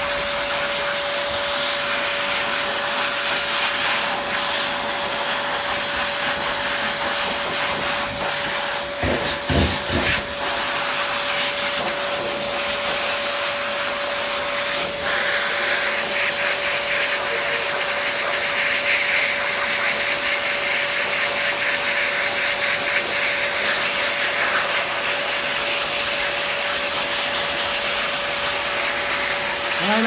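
Electric pet blower running steadily, blowing air through a cardboard-tube nozzle onto a wet parrot's feathers: an even rush of air with a constant motor whine.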